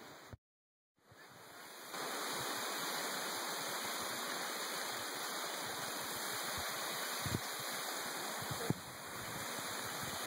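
Waterfall rushing: a steady wash of falling water that cuts out briefly about half a second in, then returns and grows louder from about two seconds in. Two faint knocks sound in the second half.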